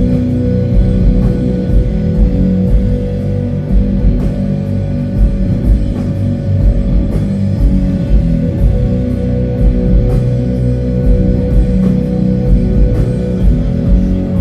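Doom metal band playing live: slow, dense low guitar and bass riffing with drum kit hits, over a long held note.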